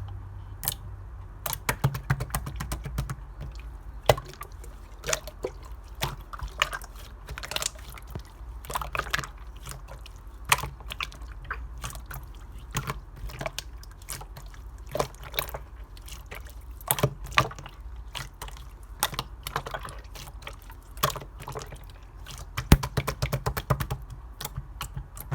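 Clear slime squished and folded by hand, making irregular wet pops, plops and clicks as air pockets burst.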